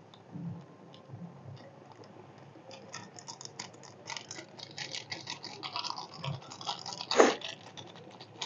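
Foil Maggi masala sachet crinkling in the fingers as it is squeezed and shaken out over the pan: a dense fine crackle from about three seconds in, with one louder crunch a little before the end.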